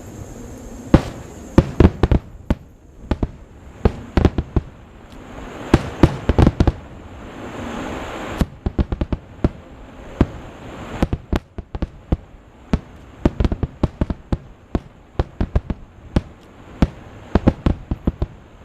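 Fireworks display: aerial shells bursting in a rapid, irregular barrage of sharp bangs, some in quick clusters. A rushing hiss swells about five seconds in and cuts off sharply near the middle.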